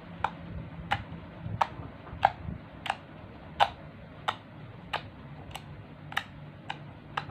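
Clear Fevigum-and-borax slime being worked by hand, giving sharp clicking pops at an even pace, roughly one every two-thirds of a second, about a dozen in all.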